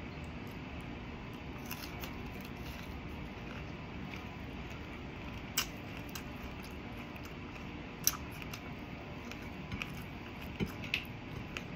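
Quiet eating sounds at a meal: a few sharp, scattered clicks and taps, more of them near the end, over a steady faint background noise.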